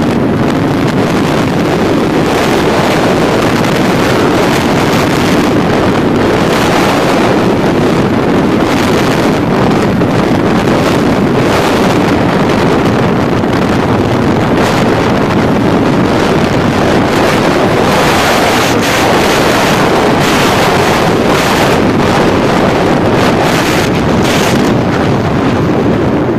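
Wind rushing over the microphone of a KTM RC motorcycle being ridden at speed: a loud, steady roar with short gusts of hiss, and the bike's running noise underneath.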